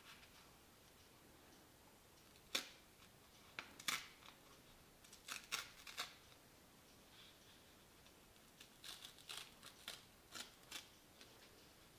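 A sheet of paper being handled and torn in two along a fold, heard as short, scattered crackles and rips in two clusters, the first a couple of seconds in and the second near the end.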